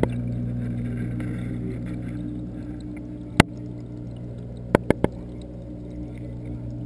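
Steady low mechanical hum of reef-tank pumps, heard through a waterproof camera held underwater. One sharp click comes about halfway through, and three quick clicks follow about a second later.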